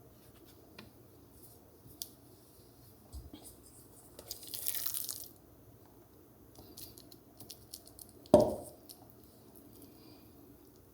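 Kitchen handling sounds from food preparation: scattered small clicks and taps, a brief hiss about four seconds in, and one sharp knock a little past eight seconds, the loudest sound.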